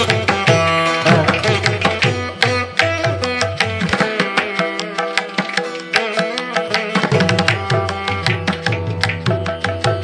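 Background music, an Indian-style instrumental with a quick hand-drum rhythm and plucked string notes. The low drum strokes drop out for about three seconds midway, then come back.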